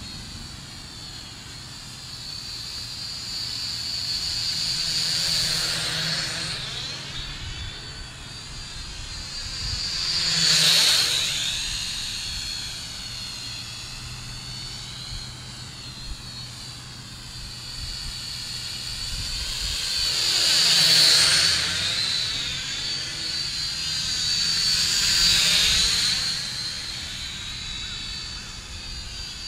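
Syma X5C quadcopter's small coreless motors and propellers whining high and steady as it flies around, swelling loud as it sweeps close by four times and fading between passes.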